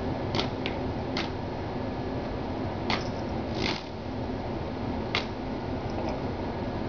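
Small electric desk fan running with a steady whir, with a handful of sharp clicks and taps as a kitten paws at the fan and its cord.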